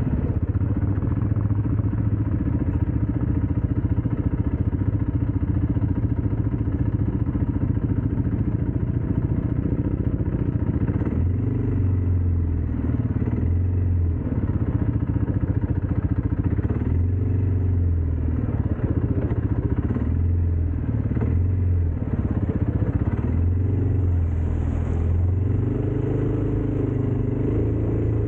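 ATV engine running while being ridden, with the throttle opened and eased off again and again in the second half.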